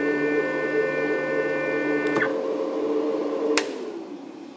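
CNC 3020 router's spindle running with a steady whine. About two seconds in, the higher part of the whine cuts off with a click; a sharp click follows a second or so later, then the remaining tone falls in pitch and fades as the spindle spins down after the job.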